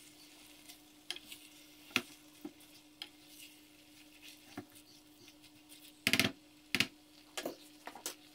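Plastic spaghetti spoon and spatula tossing spaghetti in a wok, with scattered clicks and scrapes of the utensils against the pan. The loudest is a quick cluster of clicks about six seconds in. A light sizzle and a steady low hum run underneath.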